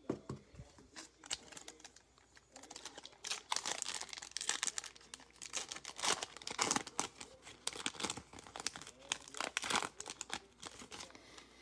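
Foil wrapper of a Panini Illusions trading-card pack crinkling and being torn open by hand. A few sharp clicks come first, then a dense run of crackling from about two and a half seconds in until near the end.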